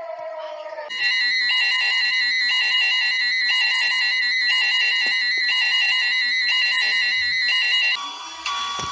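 Synthesized emergency-alert alarm: a falling siren wail ends about a second in, and a loud electronic alarm tone takes over, a harsh steady chord of high tones with a rapid pulse and one tone dropping out about once a second. It switches to a different alert sound near the end.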